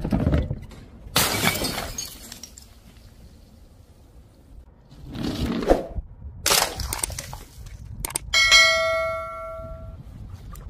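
A string of separate crashes as objects roll off a wooden ramp and smash onto a tiled floor, several with a breaking, shattering sound. About eight and a half seconds in, one strike rings on with a clear bell-like ding that fades over about a second and a half.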